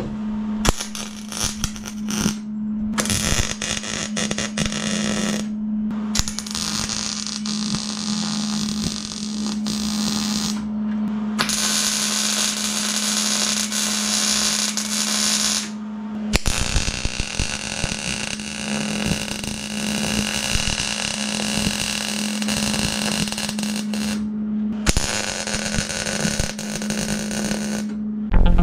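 MIG welder crackling and hissing as it lays beads on a steel replacement panel of a dump truck's box, in runs of a few seconds broken by short pauses, over a steady low hum.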